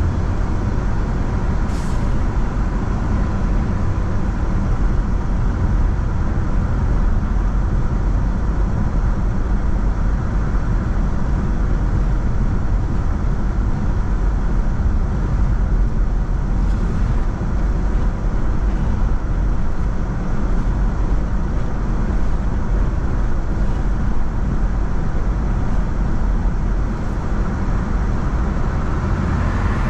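Steady low road noise of a car being driven: engine and tyres on the road. There is a faint high tick about two seconds in.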